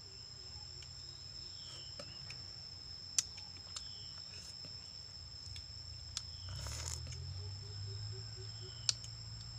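Steady high-pitched insect drone, with a few sharp clicks and a short noisy burst about seven seconds in.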